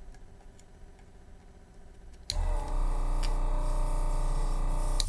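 Vacuum pump of a Yihua 948 desoldering station running steadily as the gun's trigger sucks up solder. It starts abruptly a little over two seconds in and cuts off near the end.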